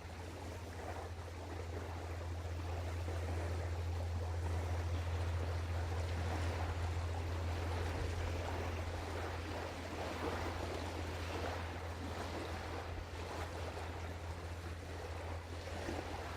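Container ship passing on the river: a steady deep engine drone under a rushing wash of water and wind that swells over the first few seconds and then holds.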